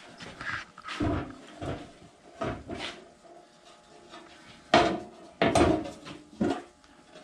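Metal wheel cover of a Delta 14-inch bandsaw being handled and fitted back onto the saw: a series of knocks and clunks, the loudest a little past the middle.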